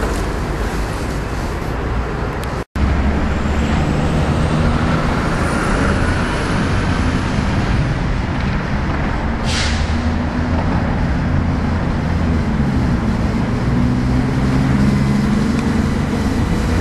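City road traffic with a heavy vehicle's engine running close by, its pitch rising in the last few seconds, and a short hiss about nine and a half seconds in. The sound cuts out for an instant near three seconds in.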